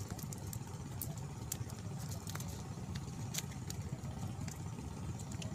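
A steady low rumble of outdoor background noise, with scattered sharp clicks at irregular intervals.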